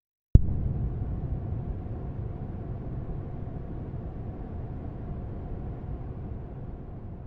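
Outro animation sound effect: a sudden low hit, then a low rumbling drone that slowly fades away.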